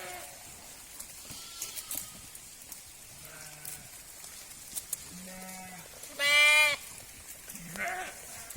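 Sheep bleating, about five separate calls at different pitches. The loudest and longest comes about six and a half seconds in, with another shortly before and a shorter one near the end.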